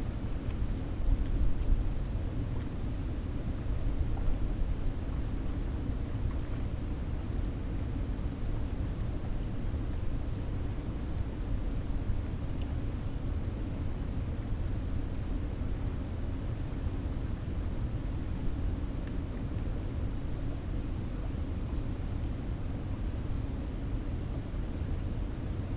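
Steady low rush of water pouring through a dam spillway, with small swells in level near the start.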